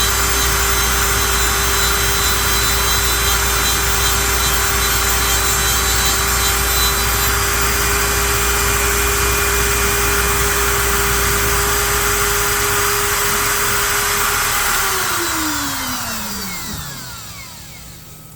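CNC wood lathe turning a curly maple blank: the cutter hisses on the wood over a steady spindle whine. About fifteen seconds in, the spindle spins down, its whine falling steadily in pitch as the sound dies away.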